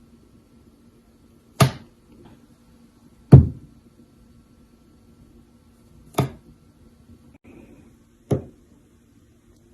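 Four sharp knocks at uneven intervals over a faint steady hum.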